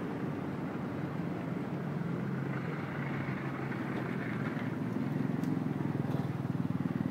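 Steady low rumble of a nearby motor vehicle's engine running, growing a little louder in the second half, with a couple of faint clicks near the end.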